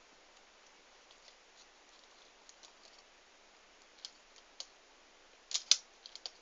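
Wire cutters being handled on wires: scattered faint clicks, then a few sharp snipping clicks about five and a half seconds in.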